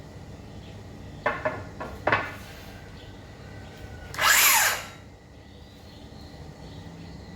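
A few sharp knocks, then a DeWalt DCS578 cordless circular saw triggered briefly: its motor whirs up for under a second, and its pitch falls away as it stops.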